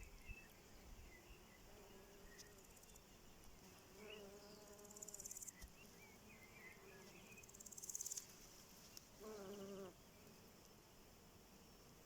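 Faint insect trills: high, rapidly pulsing buzzes that swell twice, about five and eight seconds in, with scattered small bird chirps and a short, faint animal call near the end.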